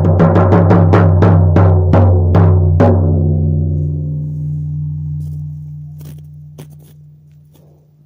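Shamanic hand drum beaten in an even beat that slows and stops about three seconds in, a low ringing tone fading out after it. A few faint knocks come near the end.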